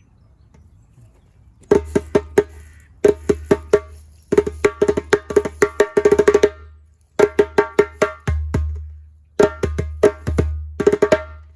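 Cowhide-headed djembe played by hand in short phrases of quick strokes, mixing ringing higher tones with deep bass notes that boom under them. It starts about a second and a half in, with short pauses between phrases.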